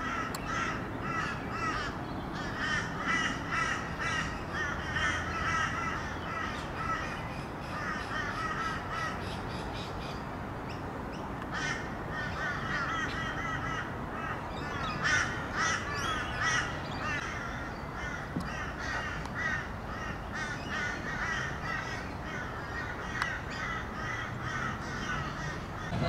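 A flock of birds calling, in several bouts of rapid, repeated short calls with brief pauses between them.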